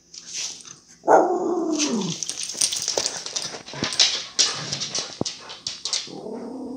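A Pomeranian grumbling: a drawn-out whining call that falls in pitch about a second in, and another near the end. Between them come rapid clicks and scratching as she paws at the wooden floor.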